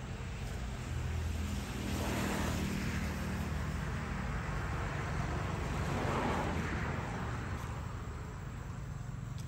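Road traffic passing out of sight: two vehicles go by, swelling and fading about two seconds in and again around six seconds, over a low steady hum.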